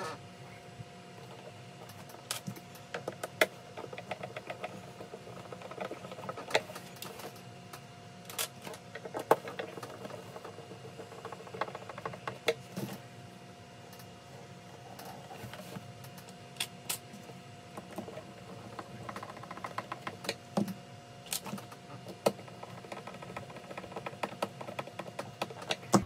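Scattered clicks, taps and short rattles of a plastic e-bike battery case and its screws being handled and fitted back together, over a faint steady hum.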